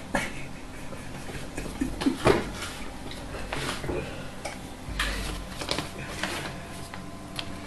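Light, irregular metallic clinks, rattles and scrapes from a wire basket as two kittens wrestle inside it, with rustling of the bedding under them.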